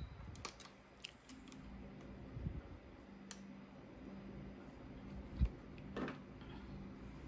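Small metal clicks and taps of a Singer sewing machine's bobbin winder parts being handled and fitted by hand, with a dull knock about five and a half seconds in.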